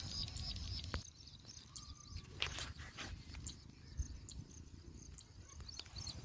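Rural field ambience: dense high chirping of small wildlife, thickest in the first second, over a low rumble, with a few scattered clicks and rustles later.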